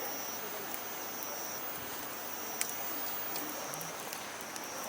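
Insects trilling in the evening: a thin high trill that comes and goes in spells of about a second, over a steady outdoor hiss, with a single sharp click about two and a half seconds in.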